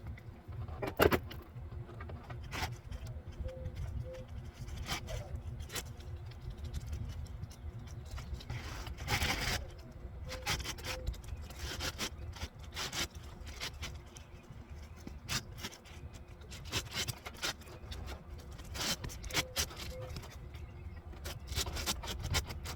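Brittle asphalt roof shingle being worked back into place: rubbing and scraping with scattered sharp clicks, the loudest about a second in, over a steady low rumble.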